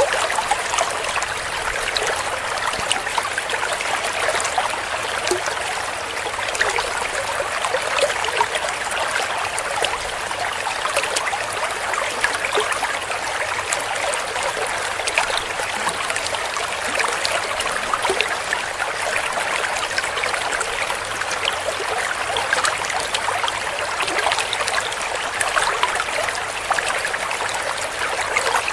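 Shallow clear stream flowing and gurgling steadily, with many small splashes and trickles over stones.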